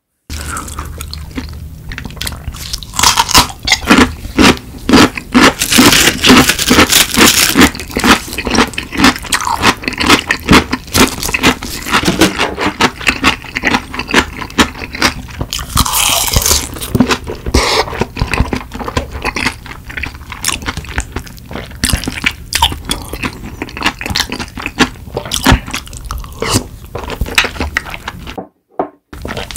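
Close-miked eating sounds: loud, irregular crunching and chewing, with chopsticks scraping a bowl, as curry rice wrapped in laver is eaten. The sound cuts out briefly near the end.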